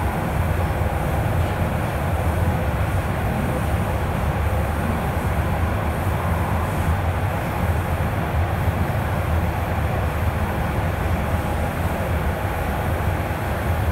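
Steady low rumble and hiss of a TTC Toronto Rocket subway train running between stations, heard from inside the passenger car.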